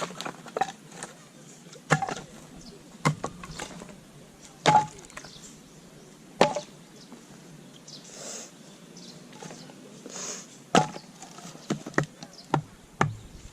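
Firewood being chopped: about ten sharp wooden knocks of a blade striking wood, irregularly spaced, with a lull in the middle broken by two soft hisses.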